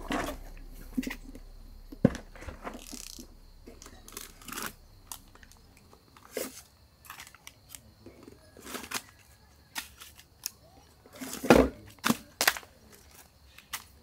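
Hard-sided cooler being unlatched and opened, with sharp clicks and knocks of the latch and lid, then the crinkling and rustling of plastic-wrapped food packages being taken out and handled, in irregular short bursts.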